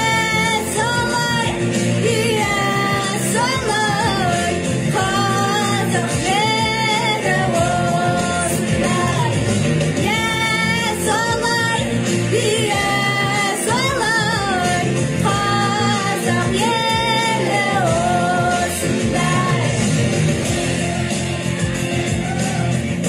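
A song: a singer's voice in phrases of a second or two with wavering held notes, over a steady band accompaniment.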